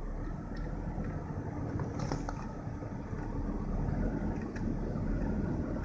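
BMW engine idling with a new engine-driven fan clutch and fan fitted, a steady low drone that wavers slightly, with a few faint ticks. The owner says the fan clutch is making the car idle weird.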